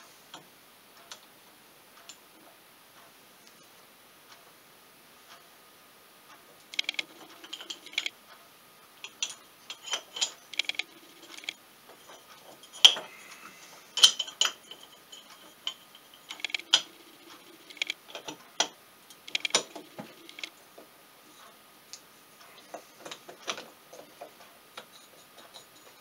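Metal engine parts clinking and tapping by hand: the cylinder of a two-stroke Polaris 400 engine being handled and lowered over the piston and crankcase studs. A few faint ticks at first, then from several seconds in a run of irregular clinks, some ringing briefly, loudest about halfway through.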